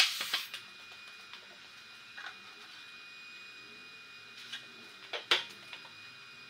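A handheld angle grinder winding down and fading out in the first half second. Then come a few light knocks and clicks of parts being handled on a tricycle frame, the loudest two close together about five seconds in, over a faint steady hum.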